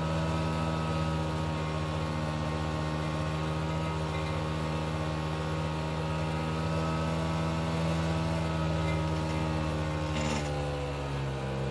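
1984 Yamaha Bravo snowmobile's single-cylinder two-stroke engine running at a steady cruising speed. A brief hiss comes about ten seconds in, and the engine eases off slightly near the end.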